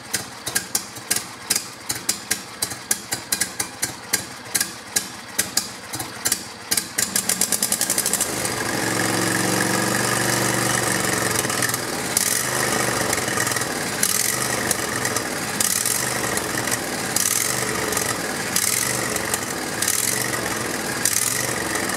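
Briggs & Stratton 24 hp Intek V-twin lawn-mower engine on its first start after an engine swap. The electric starter cranks it in an even chug of about three pulses a second; after about seven seconds the pulses quicken as it fires, and it catches and runs steadily, louder, from about eight seconds on.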